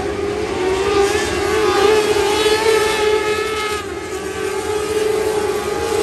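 Several winged lightning sprint cars racing on a dirt oval, their engines running at high revs in a high-pitched whine that wavers up and down as they pass. Loudest about two seconds in, easing briefly near four seconds.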